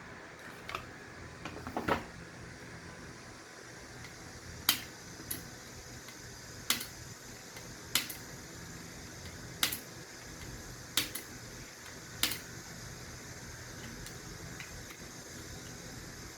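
Sharp clicks and taps from a car door latch mechanism being handled and fitted together, about nine in all, spaced a second or so apart, over a faint steady hum.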